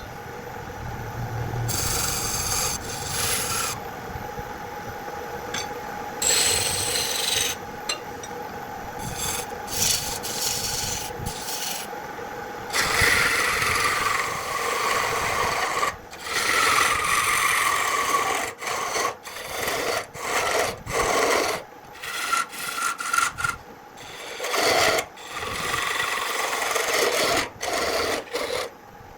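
Wood being worked with tools: rough rasping and scraping strokes in uneven bursts, some carrying a higher whine.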